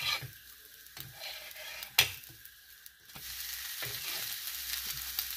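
Hibiscus-leaf dosa sizzling on a hot iron tawa, with a flat metal spatula scraping and clacking against the pan. There is a sharp clack about two seconds in, and the sizzle grows louder in the second half.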